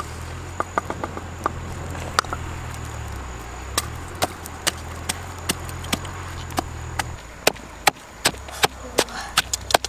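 Wooden pestle pounding chillies and garlic in a wooden mortar: sharp knocks, scattered at first, then settling into a steady beat of about two to three a second in the last couple of seconds.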